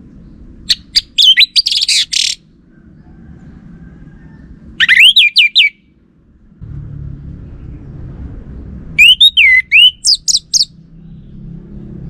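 Orange-headed thrush singing three short phrases of quick, high whistles and slurred notes, a few seconds apart. A low steady rumble sits underneath and grows louder about halfway in.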